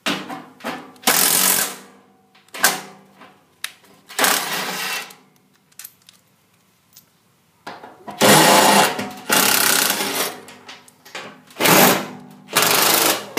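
Cordless drill with a socket running in about eight short bursts, each a second or less, unscrewing the nuts on the blower motor's mounting arms.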